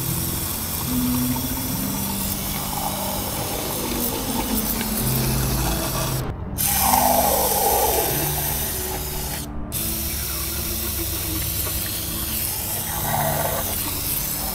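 Aerosol cleaner spraying with a steady hiss, used to soak and clean sludge deposits from the engine's valve-train parts. The hiss cuts out abruptly twice near the middle.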